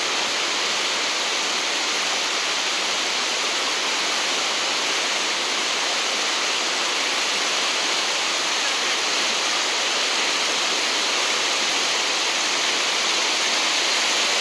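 Whitewater rapids of a rocky river rushing steadily over boulders, an even hiss of churning water with no breaks.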